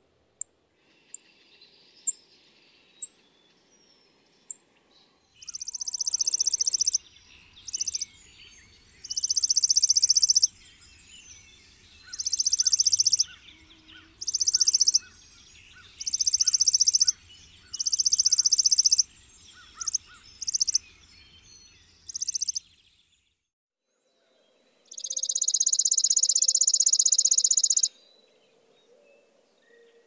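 Chipping sparrow: a few single high chip notes, then a run of fast, dry, very high trills on one pitch, mostly a second or so long and about two seconds apart. Near the end comes one longer trill of about three seconds.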